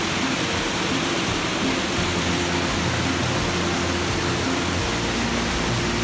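Water rushing steadily over a small rocky waterfall cascade, a loud, even rush of white water.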